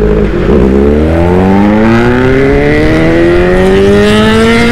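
Motorcycle engine accelerating. After a gear change about half a second in, its pitch climbs steadily as it revs up through the gear.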